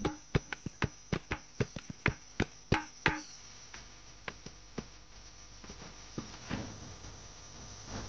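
A run of sharp, ringing knocks, about three a second, that stop about three seconds in, leaving a faint steady hiss with scattered light ticks.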